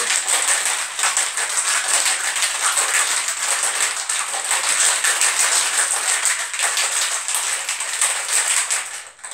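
Ice cubes rattling hard inside a screw-top cocktail shaker as a margarita is shaken vigorously: a fast, loud, continuous rattle that stops shortly before the end.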